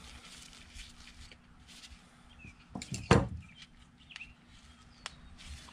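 Quiet handling of a carburetor with small clicks, and one sharp clack about three seconds in as a screwdriver is laid down on the wooden tabletop. Faint bird chirps in the background.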